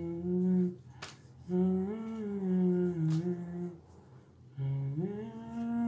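A person humming a slow tune in three phrases of held, gently gliding notes, with two short sharp clicks between them.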